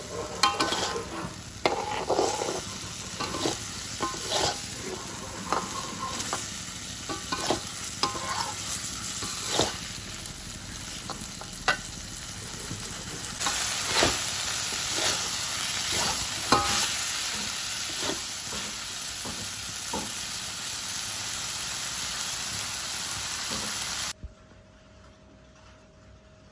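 Petai beans and onion stir-frying in a wok: oil sizzling under an irregular series of metal spatula scrapes and knocks against the pan, the sizzle growing louder about halfway through. About 24 seconds in it cuts off suddenly to a quiet background with a faint steady tone.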